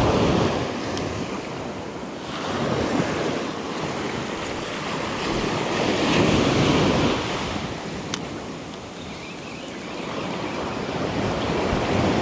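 Small waves breaking close by and washing up a sandy beach, the surf swelling and ebbing every three to four seconds.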